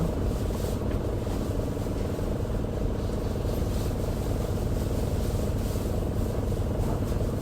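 Isuzu Erga city bus's four-cylinder turbo-diesel engine running steadily, heard inside the passenger cabin as an even low drone.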